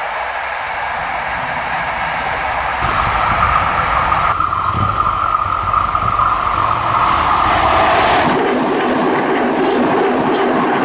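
Trains passing on ballasted track: the tail of a passenger train running by, then an SNCF U 53500 tram-train approaching and going past close by. A steady whine is heard through the middle.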